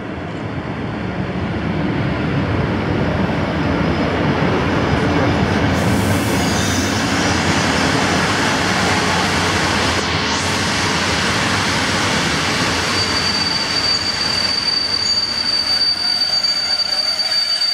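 A PKP Intercity EU160 Griffin electric locomotive and its passenger coaches arriving alongside the platform, the rumble of the wheels on the rails growing louder as the train comes in. From about two-thirds of the way through, a steady high-pitched squeal rises as the train brakes toward a stop.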